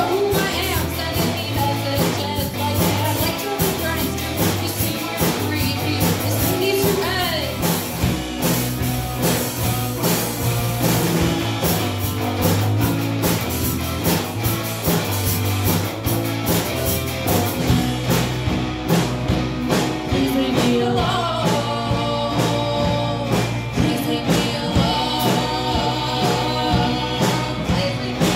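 A live rock band playing loudly: electric guitar, electric bass and drum kit, with a singer.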